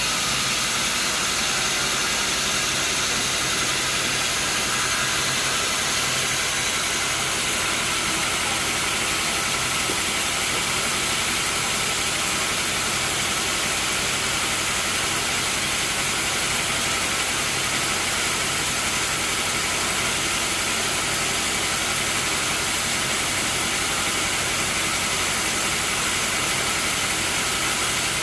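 Sawmill machinery running steadily: an even, hissing machine noise over a low engine hum, with no change in pitch or load.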